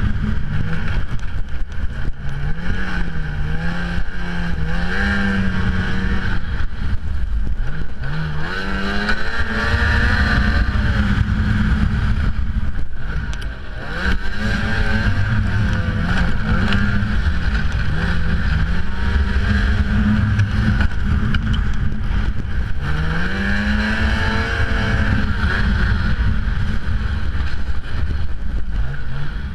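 Ski-Doo XRS snowmobile engine revving up and down as the sled is ridden through snow, its pitch rising and falling with the throttle. The throttle eases off briefly about halfway through.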